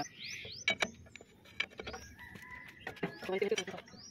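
Faint scattered clicks and taps, with short rising bird calls near the start and again about three seconds in.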